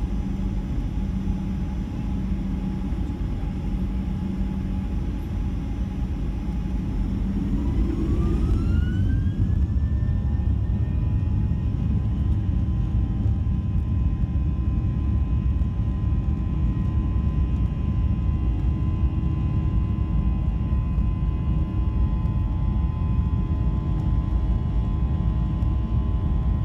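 Boeing 737-800's CFM56-7B turbofan engines heard from inside the cabin, spooling up for takeoff. Over a steady low rumble, a whine rises in pitch about eight seconds in, then holds steady and a little louder at takeoff thrust.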